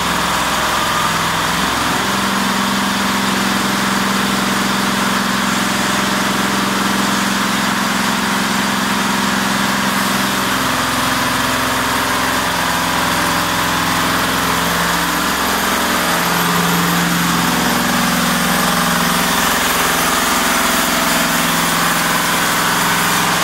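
Diesel engine of a mobile horizontal band sawmill running steadily, its pitch stepping up and down a few times. Over it is a continuous hiss from the band blade cutting through the timber.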